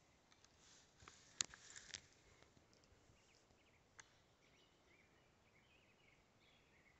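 Quiet outdoor ambience. About a second in there is a short cluster of sharp clicks and rustles from handling among branches, and another single click at about four seconds. Faint small-bird chirps come from about three seconds in.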